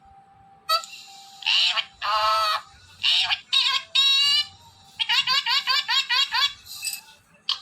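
Pet parrot calling: a harsh squawk about a second in, then a string of squawks and whistled notes, and a fast run of repeated chirps from about five seconds in.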